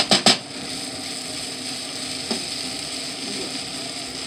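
Rice and yakisoba noodles with cabbage frying in a pan with a steady sizzle while being stirred with a plastic spoon. The spoon knocks against the pan three times in quick succession at the start and once more about two seconds in.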